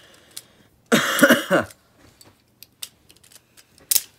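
A short wordless vocal sound from a person about a second in, like a groan or cough, followed by a few sharp, isolated clicks.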